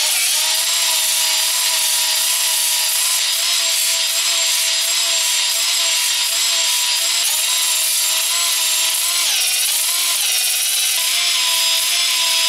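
Cordless drill spinning a 240-grit flex hone back and forth in the oiled cast iron cylinder bores of a Chevy 350 block: a steady motor whine over a loud hiss, the pitch dipping briefly about nine seconds in and then recovering. This is cylinder honing to deglaze the bores and restore the crosshatch.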